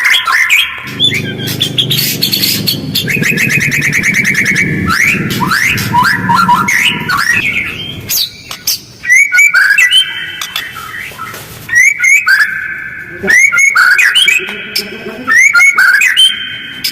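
White-rumped shama (murai batu) singing a fast, harsh song of rapid rattling trills and quick upward-sweeping whistles with short gaps between phrases, the kind of song used as a lure to provoke other shamas. A low, dense rumble runs under the song for the first half.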